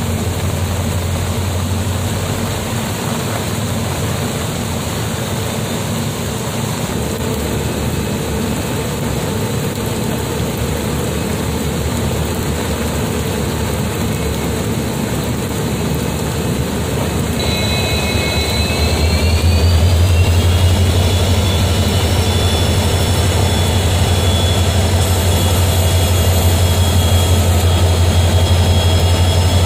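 WAP-7 electric locomotive standing with its equipment running: a steady low drone over a hiss of rain. About 18 seconds in, a whine rises in pitch and levels off, and the drone grows louder.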